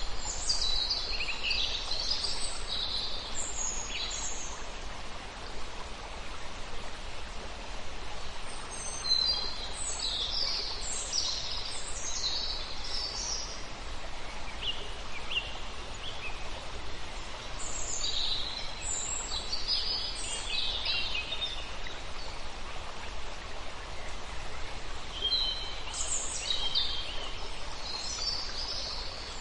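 Songbirds singing in bright, fast phrases that come in bursts about every eight seconds, over a steady rushing of running water.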